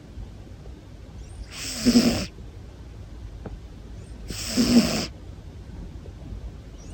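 Long-haired Munchkin cat snoring in its sleep: two snores about three seconds apart, each lasting under a second.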